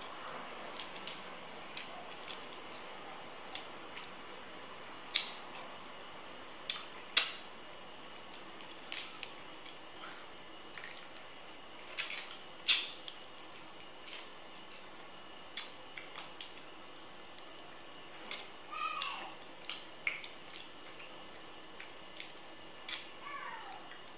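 Cooked crab shells being cracked and picked apart by hand, with irregular sharp clicks and snaps, a few of them much louder.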